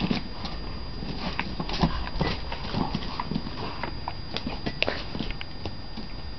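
A dog's claws clicking and tapping irregularly on stone paving as it moves about and noses at a ball.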